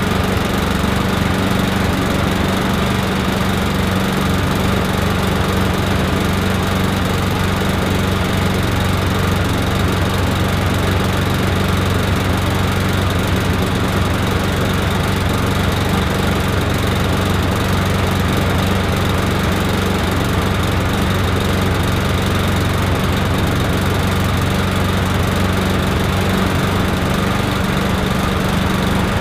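Single-cylinder four-stroke Briggs & Stratton Classic engine on a rotary push lawnmower, running steadily and evenly. The carburettor and air filter have just been cleaned to cure rich running, and the engine now runs smoothly.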